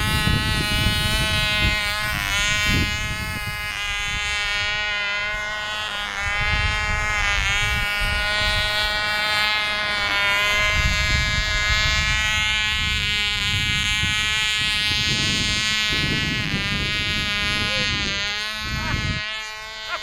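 Small 1/2A-size model airplane engine buzzing at high revs in flight, its pitch wavering as the plane moves about, with gusts of wind buffeting the microphone.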